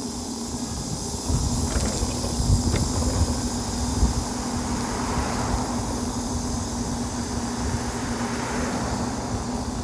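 Wind buffeting the microphone while riding an electric bike along a road, over a steady low hum. Near the middle, a car swells up and fades as it passes close by.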